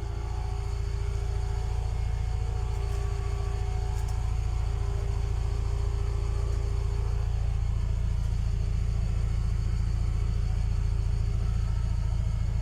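UAZ Profi light truck running, a steady low rumble with a thin steady whistle above it that grows slightly louder in the first couple of seconds. The owner suspects the gearbox, or a gearbox short of lubricant, for the whistle.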